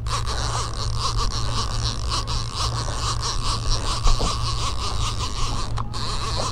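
Fishing reel being cranked, a fast, steady whirring and ticking as a hooked fish is reeled in, over the low steady hum of the boat's engine.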